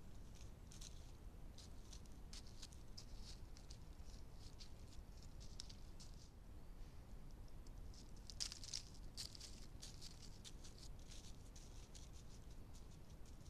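Roe deer walking through dry leaf litter close to the microphone: a run of light rustles and crackles of leaves underfoot, busiest about eight to nine seconds in.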